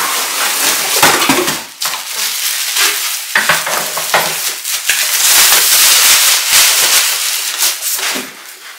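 Clear plastic wrap around a new hard-shell suitcase crinkling and rustling loudly as the case is slid out of its cardboard box and handled, with a few knocks near the start.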